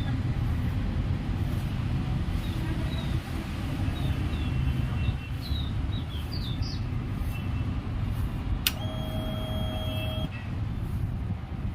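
Yezdi Roadster's ignition being switched on: a sharp click, then a steady whine for about a second and a half as the fuel pump primes, over a steady low outdoor rumble.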